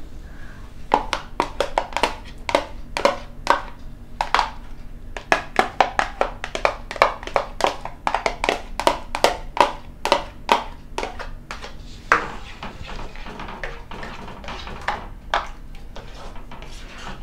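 Spatula and ladle knocking and scraping against a nonstick pan while stirring a thick yogurt-and-coconut curry: many quick, irregular clicks, thinning out after about twelve seconds, over a low steady hum.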